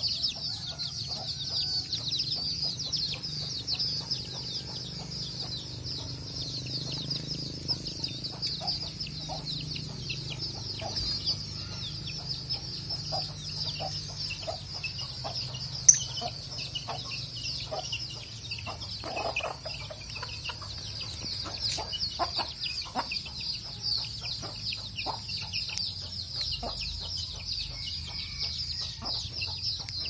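Lovebirds chattering in a dense, continuous high-pitched twitter. Scattered short, lower calls from other birds come through beneath it, and there is one sharp click about sixteen seconds in.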